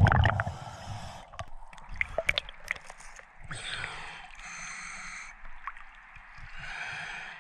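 Scuba diver breathing through a regulator in shallow water. The first seconds hold scattered sharp clicks and knocks. Then come two long hissing inhalations of a second or two each, one about halfway through and one near the end.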